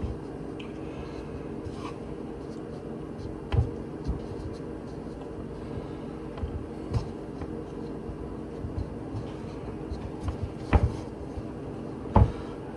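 Hands tossing chicken pieces in flour in a ceramic bowl: soft rubbing with a few light knocks against the bowl, over a steady low hum.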